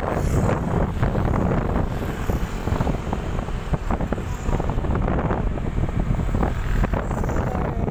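Wind buffeting the microphone of a moving motorcycle: a continuous rush of wind and road noise, heaviest in the low end.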